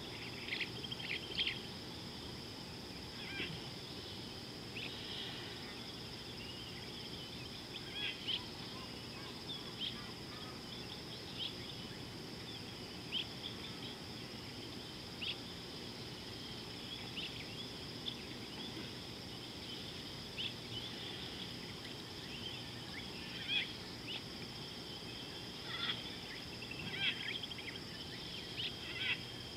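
Wild riverside ambience: a steady high insect drone with many short bird calls scattered throughout.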